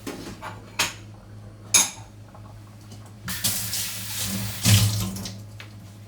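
Kitchen tap running into the sink for about two seconds, after two sharp clicks of things being handled.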